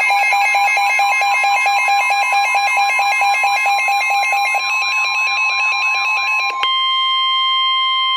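Weather radio alert: fast warbling beeps, about eight a second, over a steady high tone. About six and a half seconds in, the beeping stops abruptly and the steady 1050 Hz warning alert tone carries on alone, the signal that a warning is being broadcast.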